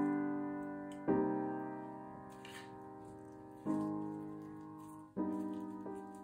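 Soft background piano music: chords struck about every one and a half to two and a half seconds and left to fade.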